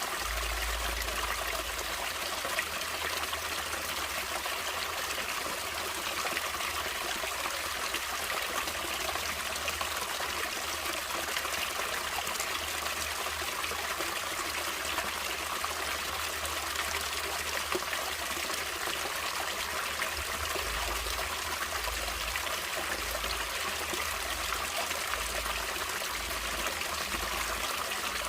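Water in a natural stream flowing and trickling: a steady, even rush with no breaks.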